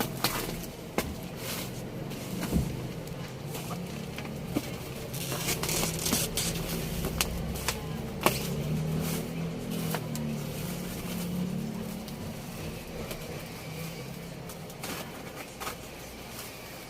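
Packaging being handled, with crinkling and scattered clicks and taps, while a motor vehicle engine hums past, loudest through the middle.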